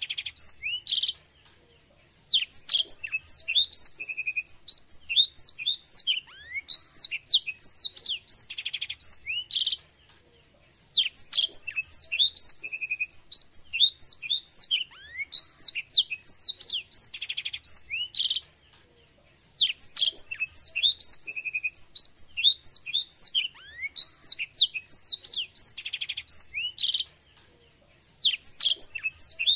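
Black-throated canary (blackthroat seedeater) singing: long runs of rapid high twittering with short trills and downward-slurred notes. The same song phrase repeats about every nine seconds, with a pause of about a second between phrases.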